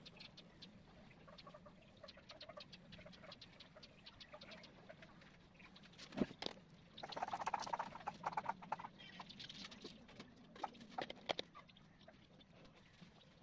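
Colored pencils scratching and tapping on drawing paper in faint, irregular small clicks. About six seconds in a sharper click and a burst of rattling and clattering follow as the yellow pencil is swapped for a brown one.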